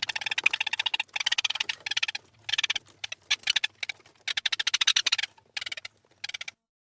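Rat chirping: rapid trains of clicky chirps, coming in a string of short bouts with brief gaps, then stopping shortly before the end.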